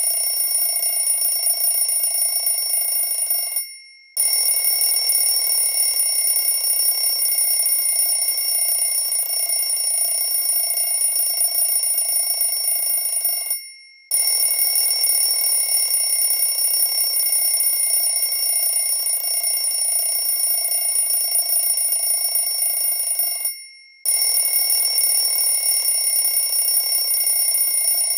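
Alarm clock bell ringing continuously. It stops three times, about ten seconds apart; each time the ring dies away, there is a brief pause, and it starts again suddenly.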